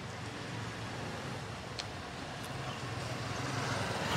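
A motor vehicle engine running in steady street traffic noise, growing louder toward the end.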